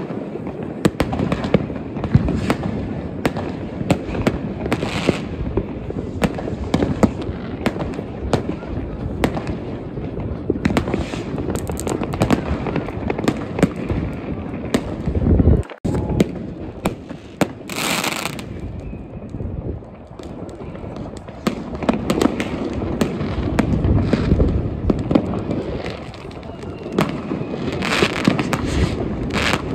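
New Year's Eve amateur fireworks going off without pause: rockets, cake batteries and firecrackers banging and crackling, many bangs overlapping. One louder, longer burst of noise comes a little past halfway.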